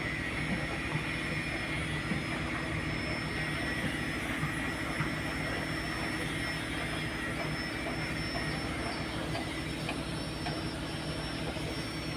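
Boat engine running steadily underway: a constant drone with a thin, steady high whine over it.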